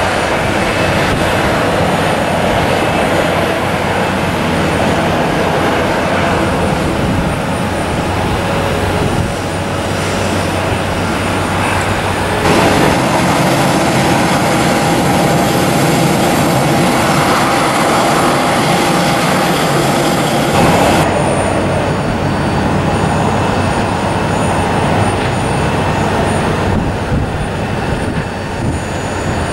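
Airliner jet engines running as aircraft taxi and approach, a steady loud noise with a thin high whine in the middle part. The sound changes abruptly twice, about 12 s and 21 s in, where separate takes are cut together.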